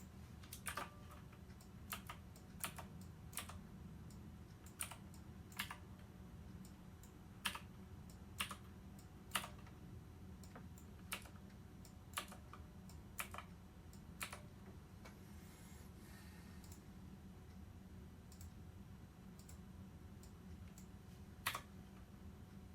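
Faint, irregularly spaced clicks, roughly one every second or so and sometimes in quick pairs, like buttons or keys being pressed, over a steady low hum.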